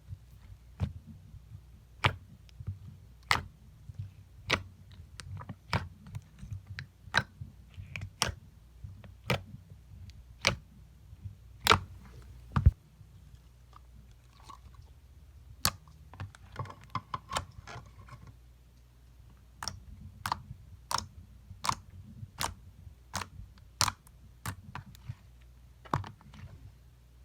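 Slime being pressed and squeezed by hand, giving sharp popping clicks about once a second. There is a short stretch of faint crackling around the middle.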